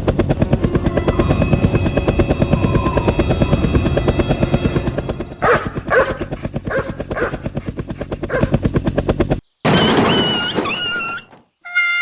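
A fast, steady mechanical rattle, about ten pulses a second, with several short sharp cries over it midway. It cuts off suddenly and is followed by a brief noisy burst with a wavering whistle.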